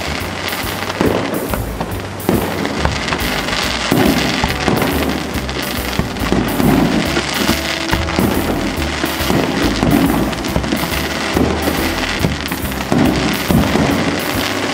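Aerial firework shells bursting one after another, a second or two apart, over big-band swing background music.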